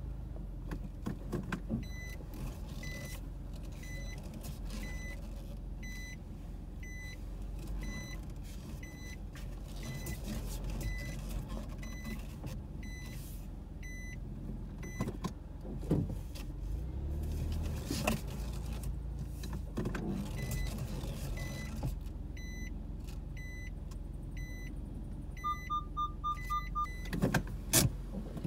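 Low rumble of a car moving slowly in the cabin, with an electronic warning beep repeating about once a second. Near the end comes a quicker run of about six beeps, then a couple of sharp knocks.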